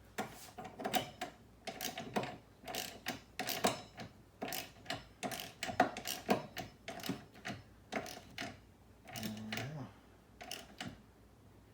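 Hand ratchet wrench clicking in quick bursts of back-and-forth strokes, tightening the engine damper's mounting nuts down to snug.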